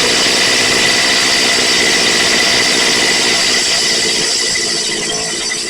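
Stihl FS76 string trimmer's two-stroke engine running steadily, just started on a pull with the choke off, now running after its fuel line, filter and grommet were replaced. It grows a little quieter near the end.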